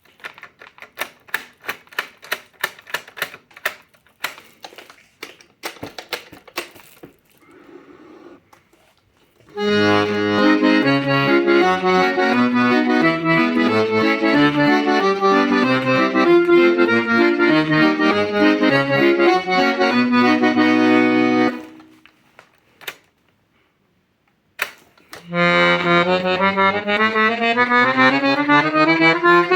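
Hohner Lucia IV P piano accordion being sound-tested. A quick series of sharp clicks comes first, then sustained chords over a pulsing bass for about twelve seconds, which stop abruptly; after a brief pause the accordion plays a steadily rising run of notes.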